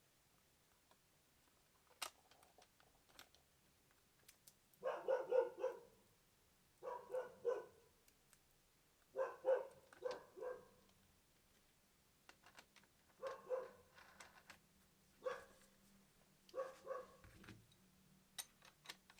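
A dog barking faintly in repeated runs of several quick barks, about every two seconds, with a couple of sharp clicks.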